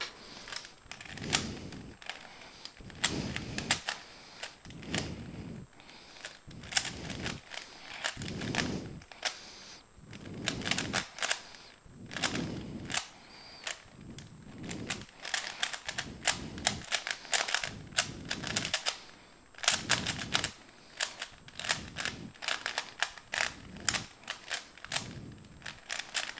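3x3 Rubik's cube being turned fast in a speedsolve: rapid runs of plastic clicking and clacking as the layers snap round, in clusters with brief pauses between them.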